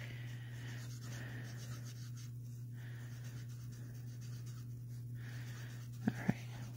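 Alcohol marker tip rubbing on cardstock in repeated short colouring strokes, a soft scratchy hiss that stops and starts, over a steady low hum.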